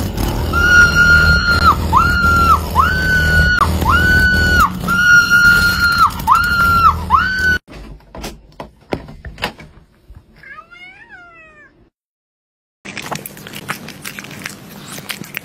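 A cat crying over and over, about eight even high-pitched yowls each dropping off at the end, over a low growling rumble. After a cut come a few clicks and a short, falling greeting meow.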